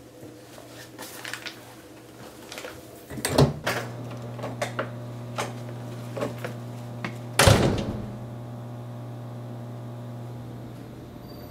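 Elevator doors clunking and clicking, with one loud thud about halfway through. Under them a steady low electrical hum starts with a knock a few seconds in.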